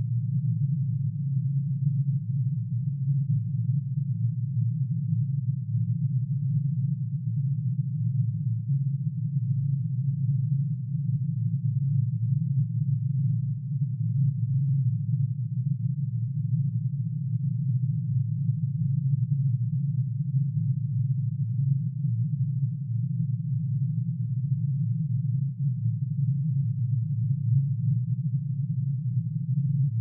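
Synthesized drone made by adding together one sine wave for each line in curium's atomic emission spectrum, pitch-shifted down into the audible range. It is a steady, dense cluster of low tones between about 100 and 200 Hz, wavering rapidly in loudness.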